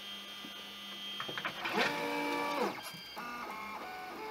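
Anet A8 3D printer's stepper motors whining in steady pitched tones that jump to new pitches as the print head and bed move while printing. The loudest stretch is a run of several tones together, some of them sliding, about two seconds in.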